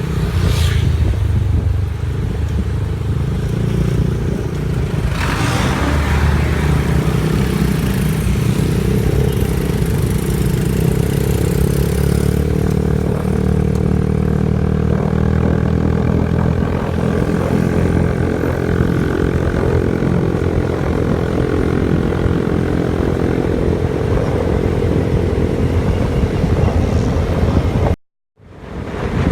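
Motor vehicle engine running steadily while travelling, with road and wind noise. It cuts out abruptly for a moment near the end.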